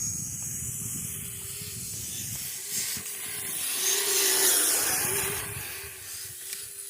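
Kyosho Blizzard electric RC tracked snow vehicle running through snow: a thin wavering motor whine under a hiss that swells about four seconds in, then eases off.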